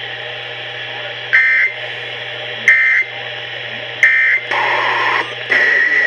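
NOAA Weather Radio broadcast ending its warning with the EAS end-of-message code: three short digital data bursts about 1.3 s apart. Near the end a steady high-pitched alert tone comes on.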